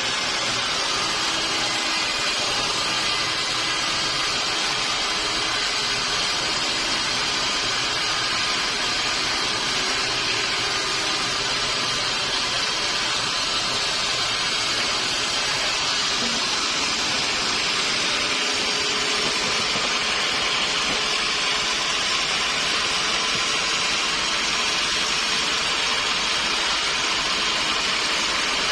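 Sawmill machinery running steadily, a constant even noise that neither starts nor stops.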